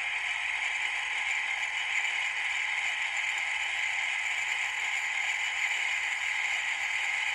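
Soundtraxx sound decoder in an N scale mechanical reefer, playing a diesel generator-set sound sampled from a real reefer's refrigeration unit. It runs steadily through the car's tiny speaker and sounds tinny, with almost no low end.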